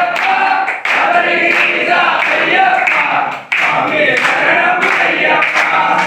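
A group of men singing an Ayyappa devotional bhajan in unison, in phrases with short breaks between them. Regular claps keep time under the singing.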